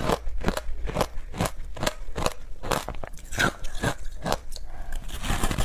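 Close-miked crunching of shaved ice with passion fruit pulp and seeds being chewed, a steady run of about two crunches a second.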